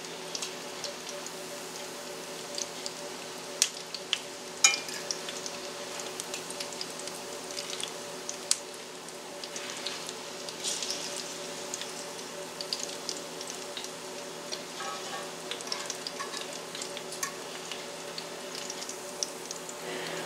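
Salmon patties frying in oil in a cast iron skillet: a steady sizzle with scattered crackles and pops. A metal fork scrapes and taps against the skillet a few times as the patties are turned and lifted out.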